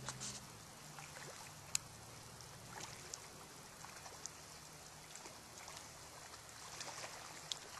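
Faint, steady rush of a shallow river flowing over gravel, with a few small clicks.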